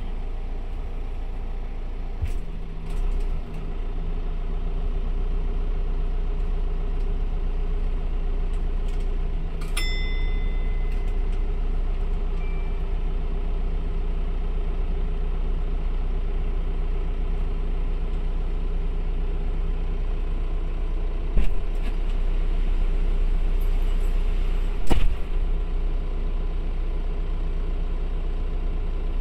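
Dual-mode vehicle's diesel engine running steadily at idle, heard inside its cabin. A short electronic beep sounds about ten seconds in, and two sharp knocks come later, the second the loudest.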